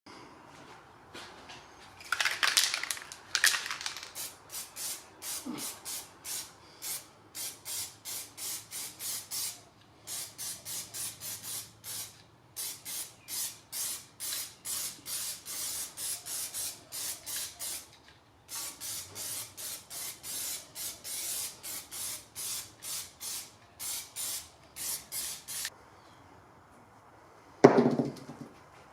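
Rhythmic back-and-forth scrubbing strokes on a hard surface, about two to three a second, pausing briefly now and then, with a few louder scratchy strokes at the start. A single loud knock comes near the end.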